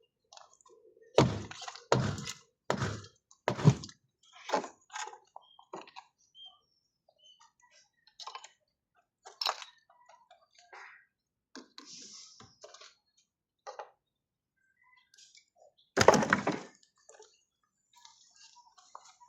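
A series of heavy thuds: four in a row about a second apart, then scattered lighter knocks and clicks, and one loud thud near the end.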